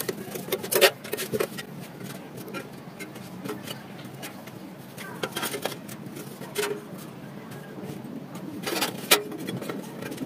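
Scattered knocks and clinks of metal parts being handled, with the loudest knocks about a second in and near the end.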